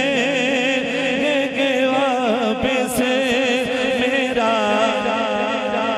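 A man singing a devotional manqabat, drawing out a long, wavering, ornamented phrase between lines of the verse. About four and a half seconds in it climbs to a higher held note.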